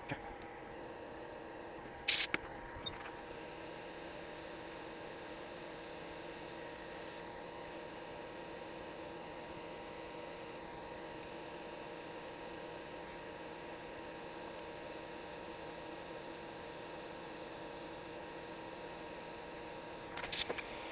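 Steady electrical hum and hiss from bench equipment, with a sharp click about two seconds in; a higher hiss joins just after and runs until another click near the end.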